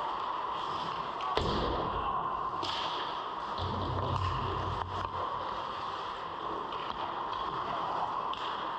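Ice hockey play close to the goal: skates scraping the ice with stick and puck clacks, a sharp knock about a second and a half in, and low thuds around four seconds in.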